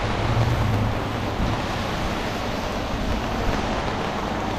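Steady hiss of rain and wind heard from under an umbrella, with a low rumble that fades about a second in.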